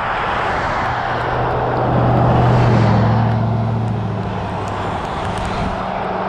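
A motor vehicle passing on a wet highway: engine hum and tyre noise swell to a peak about two to three seconds in, then the pitch drops as it goes by. Underneath runs a steady rush of road and wind noise.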